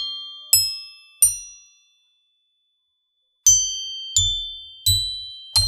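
Metal metallophone pieces cut in animal shapes and tuned to musical notes, struck one at a time with a small wooden mallet, each giving a bright bell-like ringing note that fades within about a second. Two strikes in the first second and a half, a pause of about two seconds, then four more strikes about two-thirds of a second apart.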